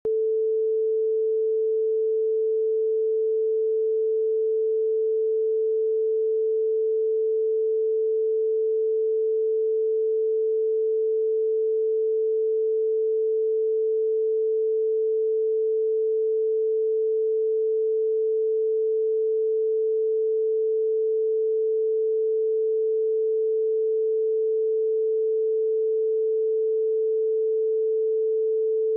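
Line-up test tone played with SMPTE colour bars: one unbroken, steady tone at a single fixed pitch, used to set audio levels before the programme.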